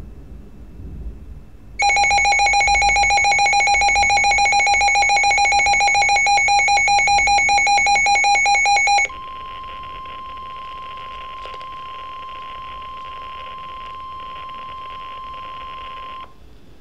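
Weather radio alerting to an NWS warning: a loud, rapidly pulsing electronic alarm beep for about seven seconds, then the steady 1050 Hz warning alarm tone over radio hiss for about seven seconds, which cuts off shortly before the end.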